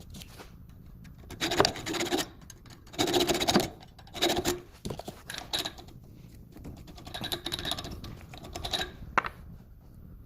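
Metal hacksaw blade scraping along a screw's damaged thread in short, irregular rasping strokes, with a sharp click near the end.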